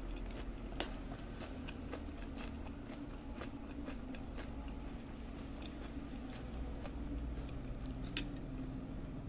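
Close-up mouth sounds of someone eating seblak with crackers: chewing, with many scattered sharp smacks and clicks, over a steady low hum.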